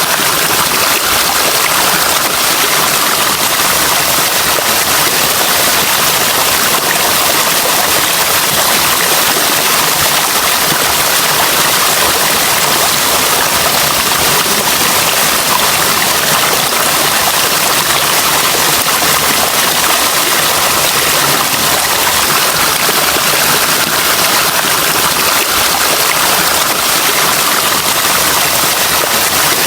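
Running water giving a steady, hissing rush that does not change.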